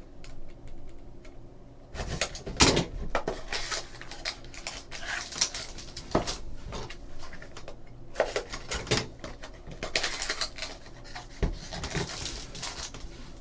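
Trading card packs and their cardboard box being handled: the foil wrappers rustle and crinkle, with scattered taps and clicks as the packs are popped out of the box.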